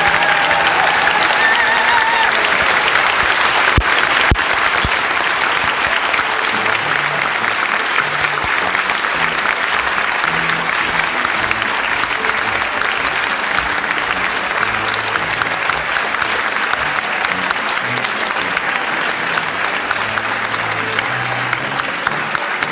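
An audience applauding steadily. In about the first two seconds the dance music's last fiddle notes ring out, and music carries on faintly beneath the clapping.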